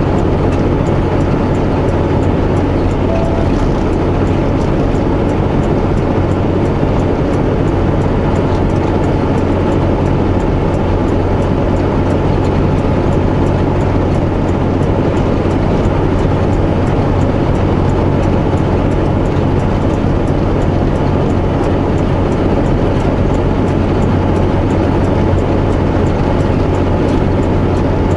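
Semi truck's diesel engine droning steadily inside the cab, with an even road-and-cab rumble, as the truck climbs slowly with tire chains on.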